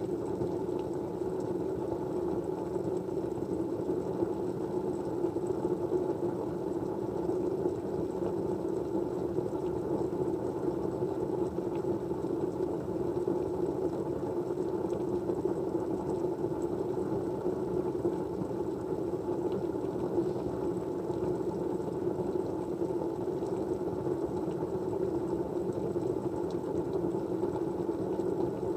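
Steady, unchanging white-noise background, a dull even hiss weighted toward the low-middle range, with a few faint ticks.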